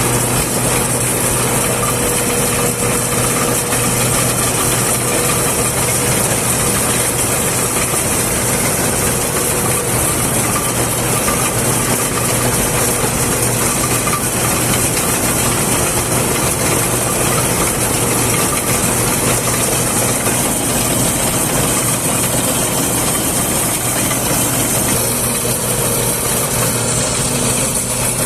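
Large farm machine's engine running steadily, a constant hum with a dense mechanical noise and a hiss high above it.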